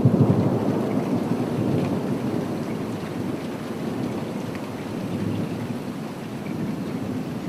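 Recorded thunderstorm ambience: steady rain with a low rumble of thunder that is loudest at the start and fades over the first couple of seconds.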